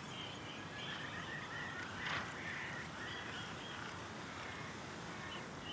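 Faint outdoor ambience of small creatures chirping over a steady background hiss, with a brief soft rustle about two seconds in.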